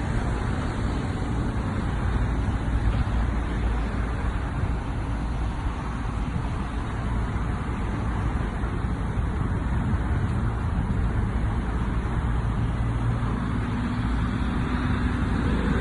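Steady low rumbling noise with no distinct events, with a faint hum coming in near the end.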